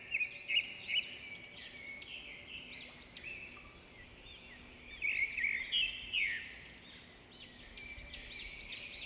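A group of swiftlets at their nests twittering: many short, high chirps overlapping, louder bursts just after the start and again about five seconds in.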